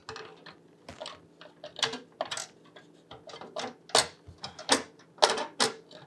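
Irregular clicks and light knocks, about a dozen, loudest around the middle, as an Asus Hyper M.2 expansion card is worked into a PCIe slot in a PC case.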